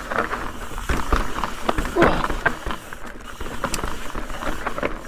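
Ibis Ripmo mountain bike rolling down a rocky dirt trail: tyre noise over dirt and stone, with frequent irregular knocks and rattles as the bike hits rocks and roots.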